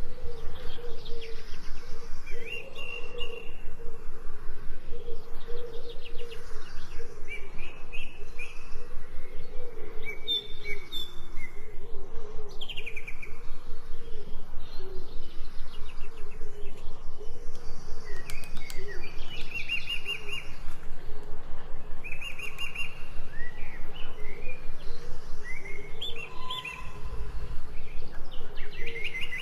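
Forest birds chirping and singing: many short calls, slurred notes and trills from several birds. Beneath them runs a fast, even pulsing sound.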